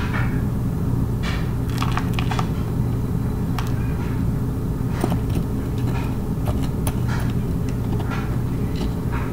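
Metal spoon scraping and clicking in a plastic tub of potting soil as rocks are picked out of the dirt: a scattered series of short scrapes and clicks over a steady low hum.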